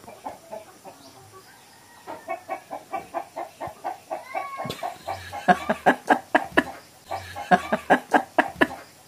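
Chickens clucking in a quick, even run of about five clucks a second, louder from about halfway through.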